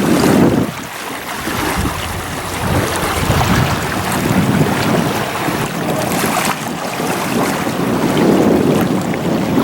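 Kawasaki STX-12F jet ski under way on the water, heard mostly as wind buffeting the microphone and rushing water.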